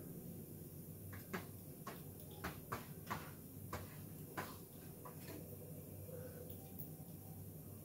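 A cat's paw tapping at a TV screen: about ten short, light clicks, spread irregularly from about a second in to past the five-second mark. A faint low hum runs underneath.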